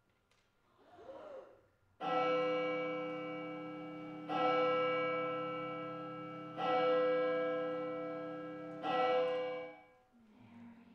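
A bell tolling four times, about two seconds apart, each stroke ringing on and fading until the next; the last stroke is cut off short.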